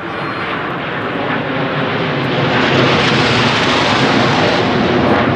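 Formation of Aermacchi MB-339 jet trainers flying overhead, a broad jet roar that swells over the first three seconds and then holds loud as they pass.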